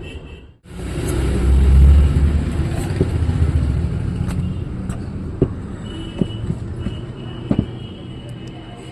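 A motor vehicle running close by, its low rumble swelling to its loudest about two seconds in and then slowly fading, with a few sharp clicks scattered through.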